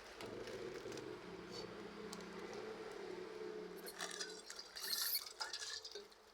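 A steady low hum, then a quick run of clinks and knocks of kitchenware from about four seconds in.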